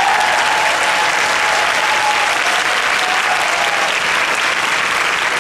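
Steady audience applause: a crowd of people clapping.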